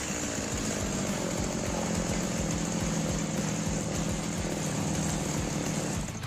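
Stihl MS 180 two-stroke chainsaw running steadily on its test run after repair, with a new bar and chain fitted. The sound cuts off abruptly near the end.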